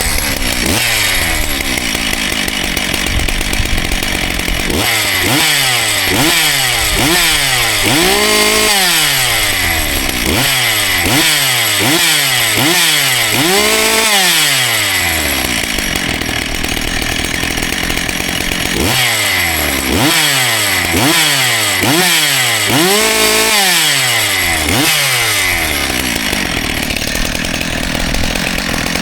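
Husqvarna 570XP two-stroke chainsaw engine running after a cold start, revved up and let fall back over and over: runs of quick throttle blips, with three longer revs held near the top, and steadier running between. Its top end is freshly rebuilt, and it is being run in.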